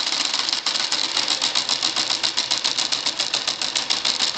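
Rudder actuator of a 1960s Testors SkyHawk single-channel pulse radio model clicking rapidly and evenly, about nine clicks a second, as the rudder flaps back and forth equally under the pulsed signal.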